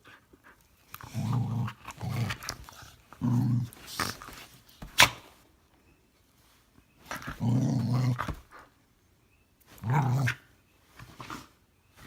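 Norwegian Elkhound making low, growling grumbles in about six short bouts, the kind of playful noise a dog makes when it wants to keep playing. A single sharp click about five seconds in.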